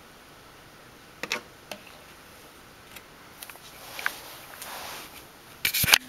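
Clear plastic deli cup and container being handled: a few light clicks, a soft rustle in the middle, and a sharp plastic knock near the end.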